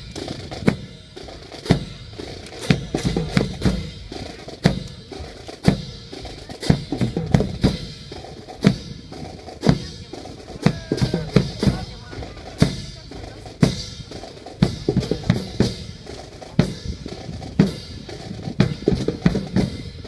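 Marching drums playing a cadence: a heavy beat about once a second, with snare drum rolls and rim hits between.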